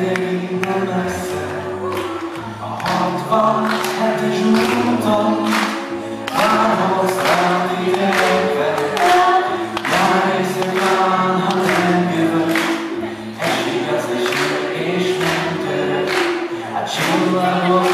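A cappella vocal group of mixed male and female voices singing in harmony through microphones and a PA, over a steady percussive beat.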